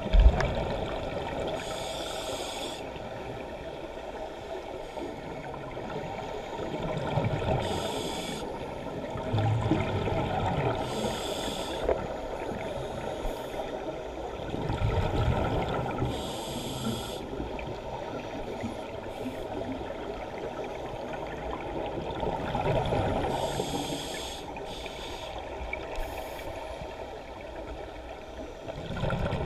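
Muffled underwater water noise picked up by a submerged GoPro in its housing: a steady rush with slow low surges, and about five short hissing bursts, each lasting about a second, at intervals of a few seconds.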